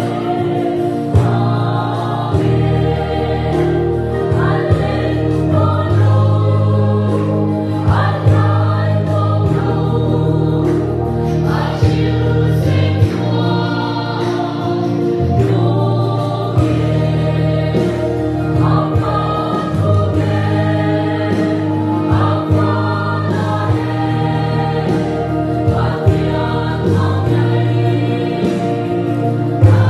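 Mixed choir of women and men singing a Mizo gospel hymn together, carried over sustained low accompaniment notes that shift every couple of seconds.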